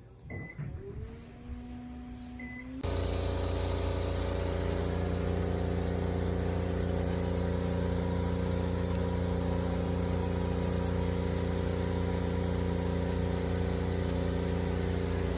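A steady motor or engine hum with several fixed pitches, starting abruptly about three seconds in after two short high beeps.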